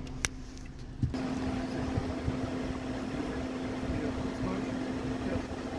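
A single click, then a car idling with a steady low hum.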